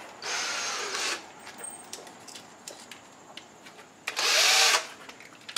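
Cordless drill running in two short bursts, one at the start and a louder one about four seconds in, with the motor pitch sweeping as it speeds up and slows down.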